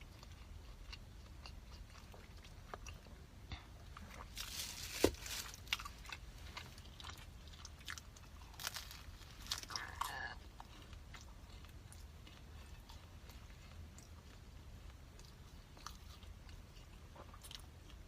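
Close-miked biting and chewing of a youtiao (Chinese fried dough stick), with crunchy bites clustered about four to six seconds in and again about nine to ten seconds in, and small mouth clicks in between.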